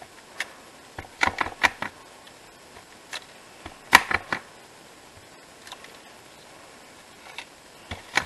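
Clear acrylic stamp block tapping against an ink pad and the paper as the stamp is inked and pressed. The taps come in quick little clusters about a second in and near the end, with one sharper knock about four seconds in.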